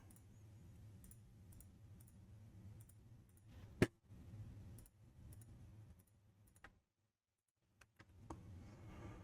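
Faint, scattered clicks of a computer mouse and keyboard, with one sharper click about four seconds in, over a low steady hum.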